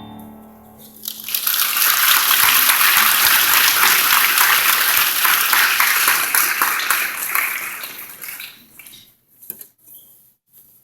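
The choir's final held chord fades, then audience applause starts about a second in, holds steady and loud, and dies away to a few scattered claps near the end.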